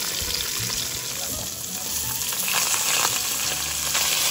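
Fish pan-frying in hot oil, a steady sizzle with scattered small crackles; the oil is hot enough to crisp the skin.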